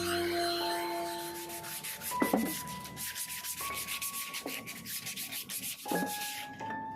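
Sandpaper rubbing in quick back-and-forth strokes, likely hand-sanding the motorcycle's metal frame or fuel tank during rust removal, under background music with held notes and a few dull thumps.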